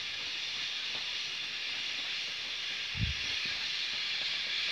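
Forest ambience: a steady high hiss with no distinct calls, and a single low bump about three seconds in.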